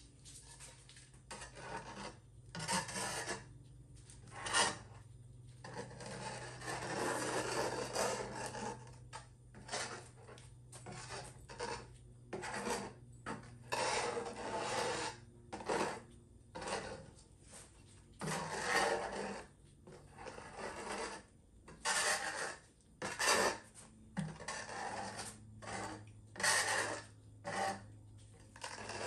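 Flat metal scraper scraping and rubbing over a resin-coated tabletop in many irregular strokes, mostly short, with a few longer passes lasting two or three seconds.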